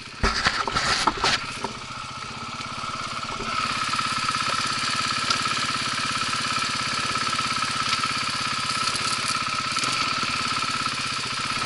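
Dirt bike engine running at a steady pitch, getting louder about three and a half seconds in. Before it, a burst of clattering knocks in the first second and a half.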